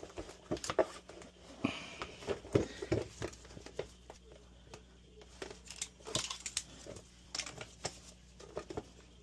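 Irregular clicks, taps and rustles of metal and plastic parts being handled while the new blower fan wheel is fitted onto the dryer's motor shaft.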